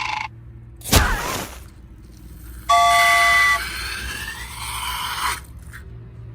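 Cartoon-style sound effects: a short whoosh about a second in, then a horn-like toot lasting about a second, followed by a noisy rush that fades out.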